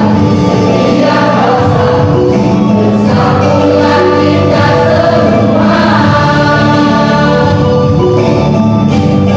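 A high-school choir singing in parts, holding long chords that shift every second or so.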